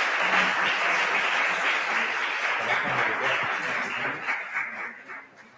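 Audience applauding: dense, steady clapping that thins out and fades away near the end.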